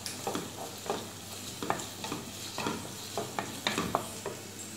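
Wooden spatula stirring and scraping chopped onions around a black frying pan in about two strokes a second, over the light sizzle of the onions sautéing in oil on a low flame.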